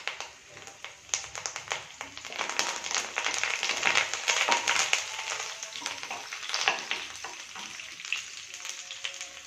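Fresh curry leaves and crushed garlic sizzling and crackling in hot oil, stirred with a wooden spatula. The sizzle is strongest a few seconds in and dies down toward the end.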